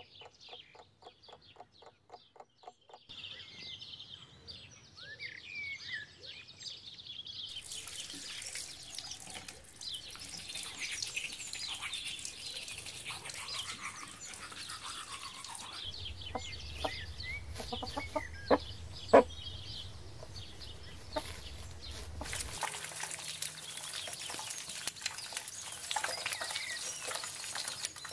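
Hens clucking and small birds chirping, then a steady scratchy hiss of teeth being brushed, with birdsong carrying on over it. Two sharp knocks come a little past halfway.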